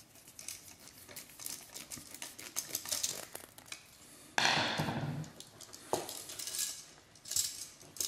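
Small metallic clicks and ticks of a Robertson screwdriver tightening a terminal screw on a duplex receptacle, then handling noise of the receptacle and its wires, with a louder rustle about halfway through.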